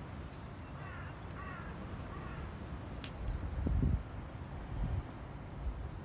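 A bird calling three or four times in quick succession about a second in, short harsh notes, over steady background noise, with a low rumble on the microphone a little past halfway.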